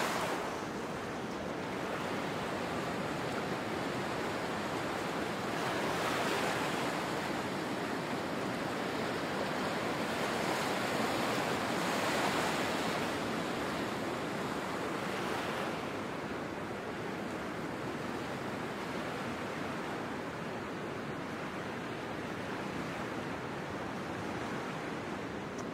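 Sea surf washing onto a rocky beach: a steady rush of waves that swells every few seconds and grows a little quieter after the middle.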